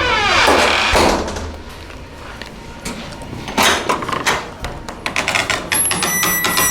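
Creaky door on a Sargent door closer creaking in a falling pitch as it swings, then a knock about a second in. A few more knocks follow, and a run of clicks comes near the end.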